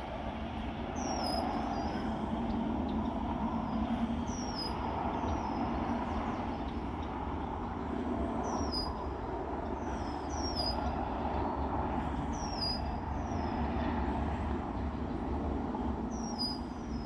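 A small bird repeats a short, high chirp that drops in pitch, every second or two, over a steady rumbling background noise.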